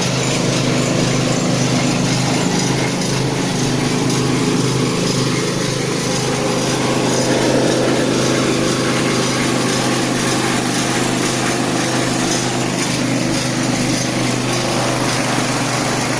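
Small rice milling machine (rice huller) running steadily under power, a constant engine-like machine noise with a hiss over it.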